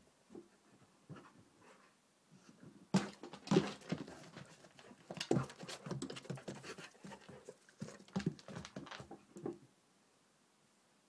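Search-and-rescue dog panting and moving right by the microphone on a bus floor, a run of short, irregular breaths and foot sounds from about three seconds in until shortly before the end.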